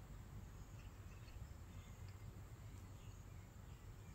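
Near silence: faint, steady low background hum of outdoor ambience.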